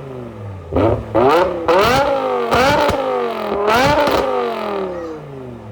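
BMW E60 M5's 5.0-litre V10 free-revving, blipped about five times in quick succession. Each rev rises fast and falls away slowly, starting with a short sharp crack, and the last one dies away near the end.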